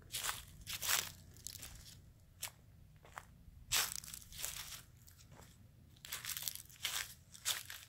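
Footsteps crunching through dry fallen leaves, a step every half second to a second, pausing briefly past the middle.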